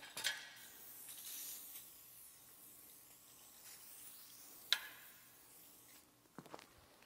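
Lubricant being worked onto a dirt bike tire's bead: a hissing, wet rubbing, strongest in the first second or two, with a sharp click just under five seconds in.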